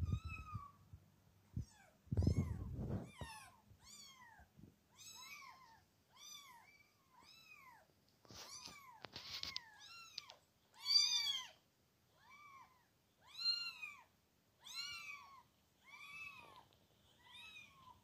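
High-pitched kitten mews played through laptop speakers: a long run of short calls that rise and fall in pitch, about one to two a second. A few low thumps come about two seconds in.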